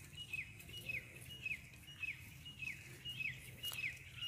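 A bird calling over and over, about two short notes a second, each a brief high note that drops quickly in pitch.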